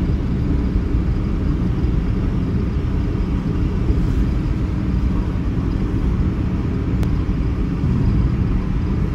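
Steady rumbling road and engine noise heard from inside a moving car.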